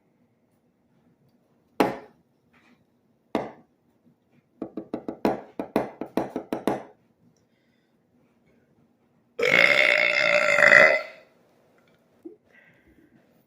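A man burping on purpose, the burps brought up from carbonated Sprite. There are two short burps, then a rapid stuttering string of about a dozen short burps, then one long, steady-pitched burp of nearly two seconds, which is the loudest.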